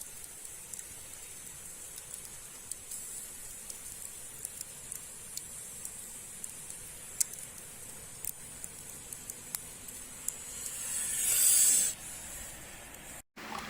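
Steady high hiss with scattered small crackles and ticks. A louder rushing hiss swells up about ten seconds in and cuts off sharply.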